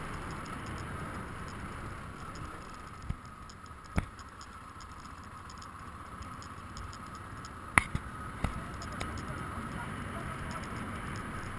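BMW motorcycle riding along a corrugated, stony dirt track: a steady running rumble, with a handful of sharp knocks from the rough surface. Two come about 3 and 4 seconds in, and a louder cluster falls around the middle-late part, the loudest near 8 seconds.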